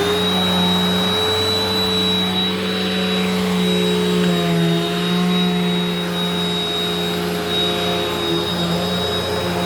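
WAP Power Speed 2-in-1 upright vacuum cleaner (2000 W) running steadily at full speed, just switched on. Its motor gives a high, steady whine over a rushing of air.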